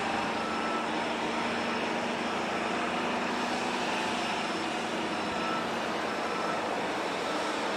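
Conrail diesel locomotives running in a rail yard: a steady, distant engine drone with a low hum and a hiss over it, its loudness unchanging.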